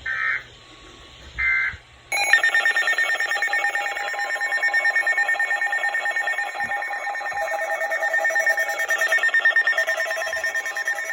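Emergency weather-radio alert signal: short data bursts of the alert header, then about two seconds in a loud electronic alarm tone starts, pulsing rapidly and stepping back and forth between two pitches.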